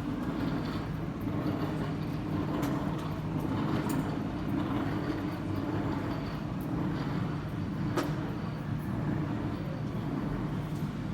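Airport terminal ambience: a steady low hum under a faint murmur of activity, with a few sharp clicks or knocks, the clearest about eight seconds in.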